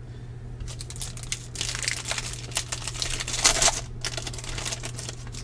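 Crinkling and rustling of foil trading-card pack wrappers being handled and torn open, in a dense run of crackles from about one to four seconds in and again briefly near the end.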